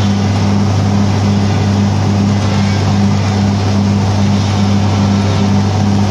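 John Deere 5400 self-propelled forage harvester running steadily: a constant low engine hum with a regular throb, under a loud rushing noise.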